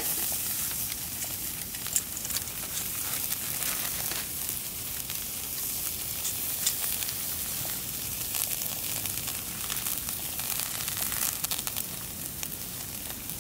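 Slices of meat sizzling steadily on a wire mesh over a charcoal fire, with a few small sharp pops and crackles.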